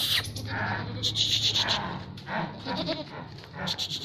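Barbari goats bleating, several separate calls one after another.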